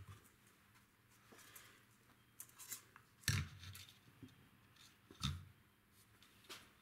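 Small hand tools being handled during wire work: scattered light clicks, and two sharper clicks with a low thud, about three seconds in and again about two seconds later.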